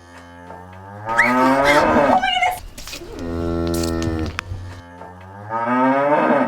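Dairy cow mooing: three long calls, the first and loudest about a second in, the next about three seconds in, and a third near the end.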